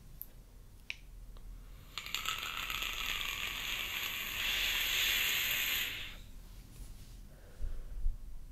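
Box-mod vape being drawn on: a couple of small clicks, then about four seconds of steady hiss and crackle as air is pulled through the tank over the firing coil. A breathy puff of the exhaled vapour follows near the end.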